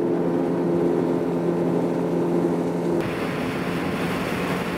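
Mercury 60-horsepower four-stroke outboard on an aluminum bass boat running at speed with a steady drone. About three seconds in, the sound shifts to an onboard rush of wind and water with the engine lower beneath it.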